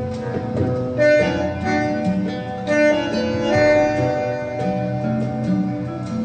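Acoustic instrumental music with plucked and sustained notes, played back from a 45 RPM vinyl LP on a Triangle Art turntable through the demo room's hi-fi loudspeakers.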